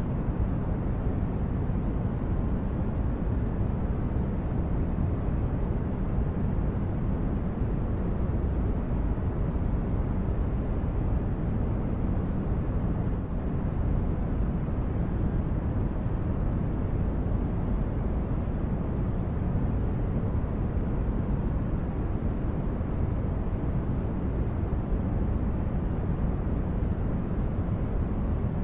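Designed spaceship-interior ambience: a steady, deep brown-noise rumble, strongest in the bass, with no tones, breaks or changes.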